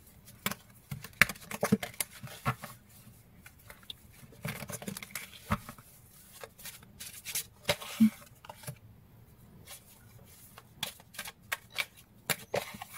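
A deck of oracle cards being shuffled by hand: irregular soft snaps and rustles of card stock.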